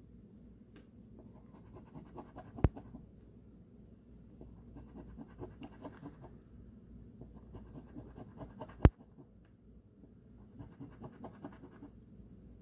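Scratch-off lottery ticket being scratched: four spells of quick scraping strokes with pauses between them, and two sharp clicks, one about two and a half seconds in and one near nine seconds in, that are the loudest sounds.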